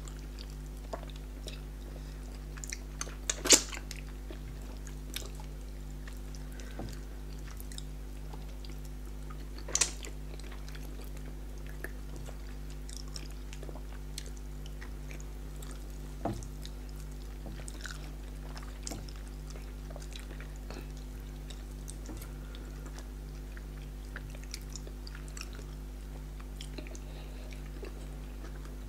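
Close-miked eating by hand, fufu and fish in soup: scattered wet chewing and sharp mouth clicks and smacks, louder about three and a half and ten seconds in. A steady low hum runs underneath.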